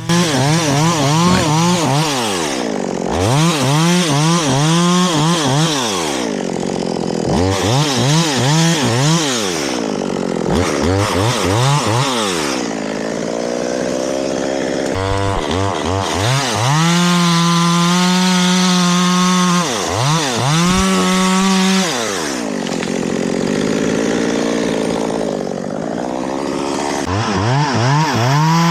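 Chainsaw revving up and dropping back to idle again and again as it cuts, with a couple of longer stretches held at full throttle about halfway through.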